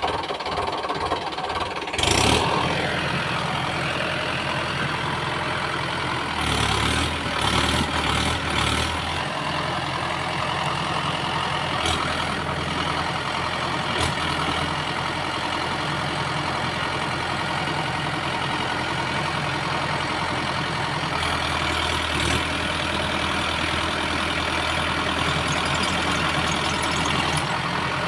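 A tractor's diesel engine running steadily, its wheels mired in deep mud. It pulls harder twice, a few seconds at a time, about a quarter of the way in and again near the end. There is a short sharp noise about two seconds in.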